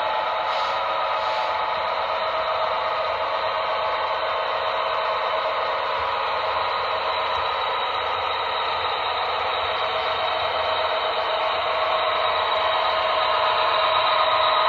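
Model train of the Burlington Zephyr streamliner running along the layout track, a steady mechanical running noise that grows louder near the end as the train approaches.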